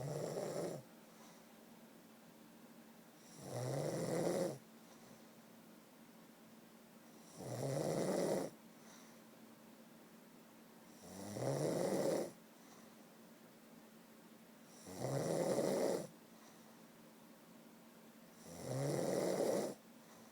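A sleeping person snoring close to the microphone: six even snores, about one every four seconds, each lasting about a second, with quiet breathing gaps between.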